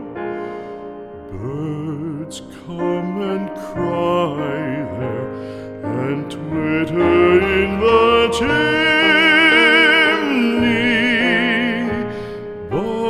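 Slow, tender music without words: a melody of long held notes with marked vibrato, swelling to its loudest and most sustained phrase about two-thirds of the way through.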